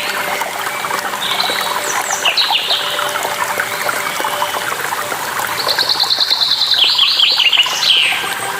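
A songbird sings two phrases over the steady rush of a waterfall: a short one about two seconds in and a longer one near the end, each a fast run of repeated high notes that then drops in pitch.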